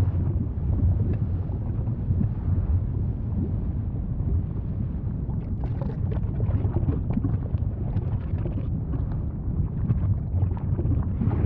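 Volcano rumbling: a steady deep roar with scattered crackles and pops throughout.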